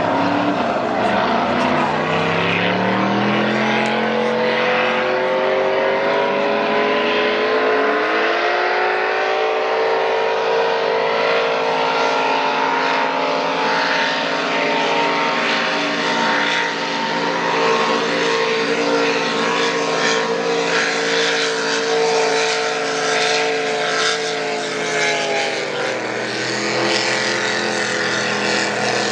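Racing powerboat engines running at high revs. Their pitch climbs in the first few seconds and again a few seconds later, holds steady, then drops near the end.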